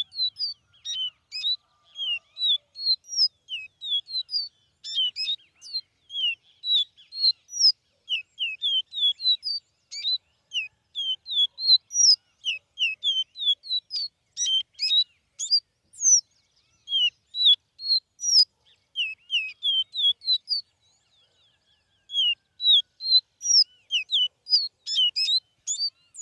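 A songbird singing a long, fast run of high chirping notes, about three or four a second, with a short break about 21 seconds in.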